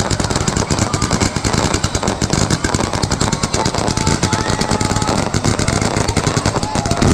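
Fireworks going off in a dense, continuous barrage of rapid bangs and crackles, with a few faint whistling glides.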